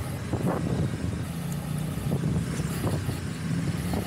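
A motorcycle's engine running steadily at low speed with road and wind noise, a continuous low hum with a few faint knocks.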